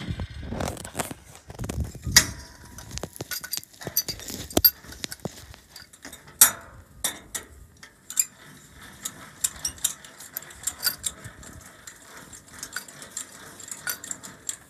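Irregular metallic clicks, clinks and knocks from hand work on the metal fittings of a pump-puller rig, with one sharper, louder click about six and a half seconds in.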